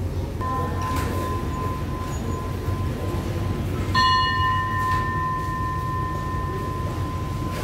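Railway station bell struck twice, once lightly about half a second in and again more loudly about four seconds in, each stroke ringing on as a long, clear tone. At Thai stations the bell is the signal for the train to depart. A low steady rumble runs underneath.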